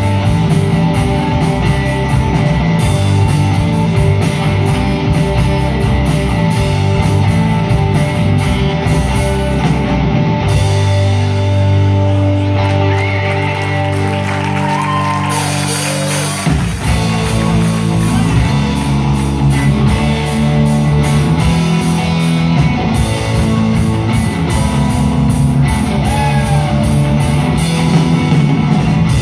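Live rock band with electric guitars, bass and drums playing loud. About ten seconds in the drum beat stops for some six seconds while held chords ring, then the full band comes back in.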